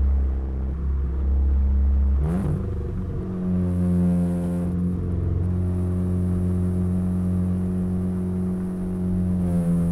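Audi A3 2.0 TFSI's turbocharged four-cylinder exhaust, fitted with a downpipe and cat-back system, running while the car drives, heard through an external microphone. The note swoops in pitch about two seconds in, then holds fairly steady.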